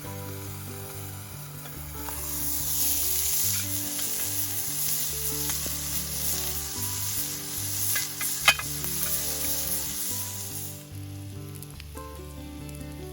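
Food sizzling in a frying pan over a campfire. The sizzle swells up about two seconds in and dies away near the end, with one sharp click partway through.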